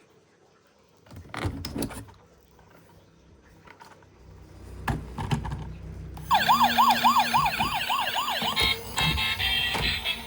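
A few plastic clicks and knocks, then a toy emergency vehicle's electronic siren comes on about six seconds in, wailing in quick up-and-down sweeps about four times a second. Near the end it switches to a different electronic beeping sound pattern.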